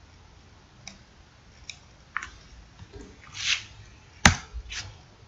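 Computer mouse and keyboard clicks: a handful of separate clicks and key taps, the loudest a sharp click about four seconds in, with a brief hiss just before it.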